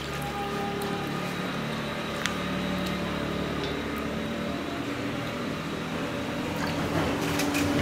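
A steady low mechanical hum, even throughout, with a few faint clicks.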